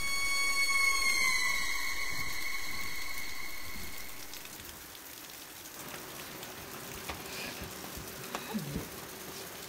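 A high ringing tone with overtones, sagging slightly in pitch as it fades away over about four seconds. A faint hiss follows, with a few small knocks and a brief low sliding sound near the end.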